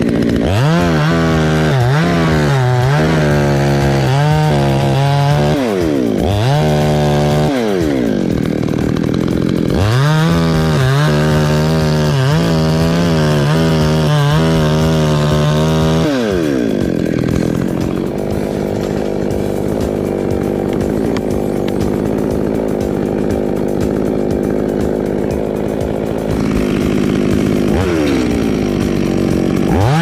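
Two-stroke petrol chainsaw at full throttle cutting a branch, its pitch sagging and recovering again and again as the chain bites into the wood. About halfway through it drops to a lower, steadier running, then revs up again near the end.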